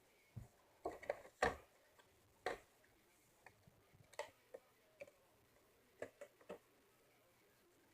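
About ten light clicks and taps at irregular intervals, from a Gear Ball twisty puzzle and its case being handled and closed up.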